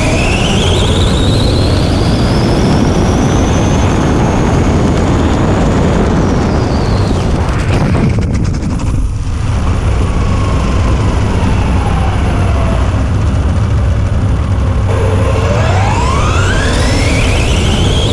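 Brushless electric motor of an Arrma Limitless V2 RC speed-run car, heard from onboard: its whine rises steeply in pitch as the car accelerates, falls away after about six seconds, and sinks slowly as it coasts. It climbs steeply again near the end, over a constant loud rushing noise.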